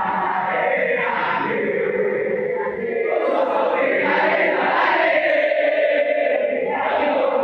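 A large crowd singing a chant together, in long held notes that shift in pitch every second or two.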